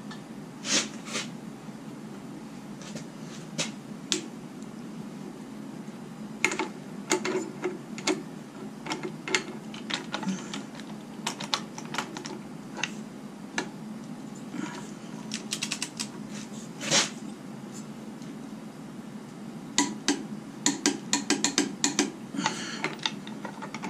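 Socket ratchet and click-type torque wrench clicking on the crankshaft bolt of a harmonic balancer as it is tightened toward its 80 ft-lb torque, with scattered sharp clicks and metal clinks, a quick run of ratcheting about two-thirds of the way in and a dense flurry of clicks near the end.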